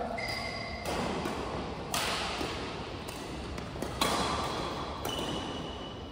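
Badminton rackets striking the shuttlecock during a doubles rally: a series of sharp hits, the loudest about two and four seconds in. Short high squeaks from shoes on the court floor come between the hits.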